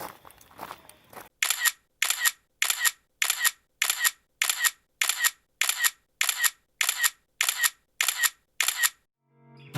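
Camera shutter clicking in a rapid, even series, about two and a half clicks a second for roughly eight seconds, then stopping.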